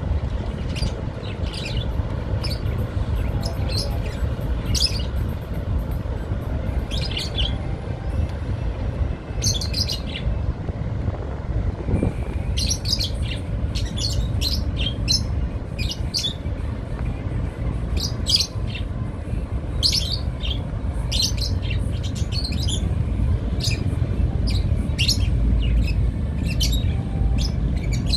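Small birds chirping: many short, sharp calls repeated through the whole stretch, over a steady low rumble.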